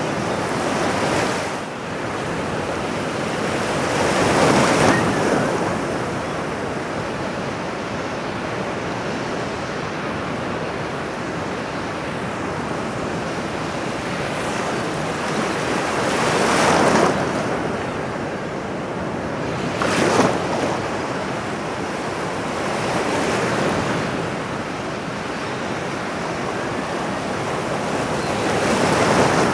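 Ocean surf washing on a shore: a steady rush of water with waves swelling and breaking at uneven intervals of a few seconds, five times in all, one sharper crash about twenty seconds in.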